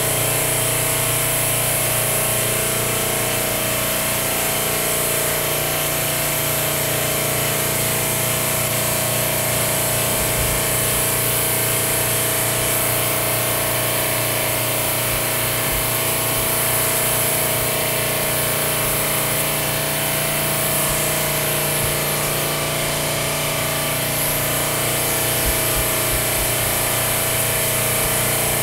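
Air compressor running with a steady hum, under the hiss of air spraying from a Harbor Freight double-action suction-feed airbrush.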